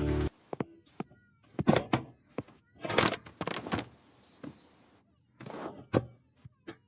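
A cat meowing in a run of short calls, with a few thuds among them. Music cuts off just as it begins.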